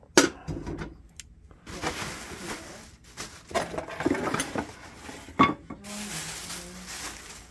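Hard objects knocking and clattering as items are lifted and set down among clutter, with sharp knocks near the start and about five and a half seconds in, and rustling in between.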